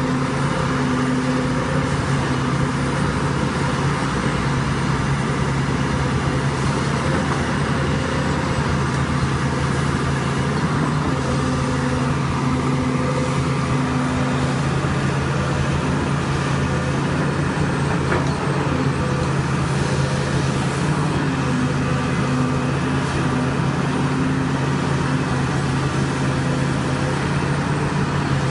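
Sany crawler excavator's diesel engine running steadily as it digs, with a higher tone that comes in and fades out every few seconds as the machine works.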